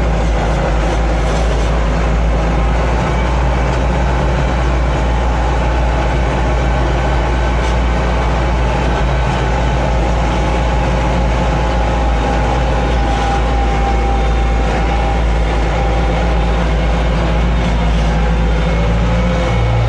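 Tractor engine running steadily under load while spreading chicken manure across a field.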